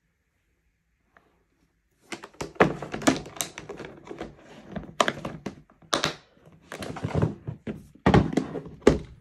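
Clear plastic battery storage case being handled: silent for about two seconds, then a run of sharp plastic clicks and knocks as the case is closed and its latches snapped, and heavier thuds near the end as it is pushed into a wooden drawer.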